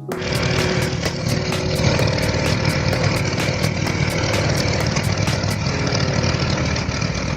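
A machine's engine running steadily. A fast, even ticking sits above it and stops about two-thirds of the way through.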